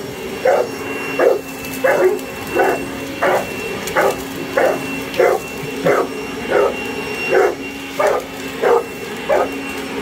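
Boerboel barking repeatedly in a steady rhythm, about three barks every two seconds, at an electric garden vacuum-blower. Under the barks runs the steady hum of the vacuum-blower's motor.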